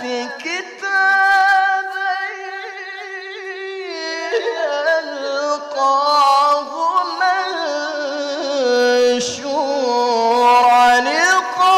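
Male qori reciting the Quran in the melodic tilawah style. He draws out long held notes with quick wavering ornaments and runs, with no words clearly articulated.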